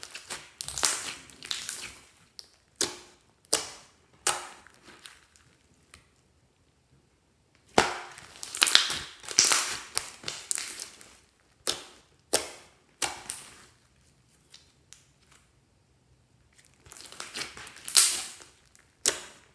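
Hands squeezing and pressing a glossy slime, its trapped air popping and crackling in quick bursts of sharp clicks. There are two pauses of a couple of seconds between handfuls.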